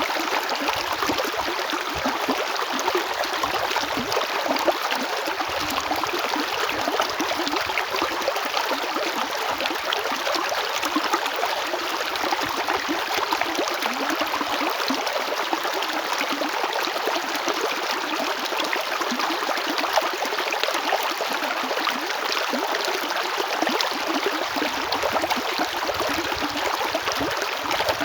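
A river flowing over stones: a steady, even rush of water with fine splashing and gurgling.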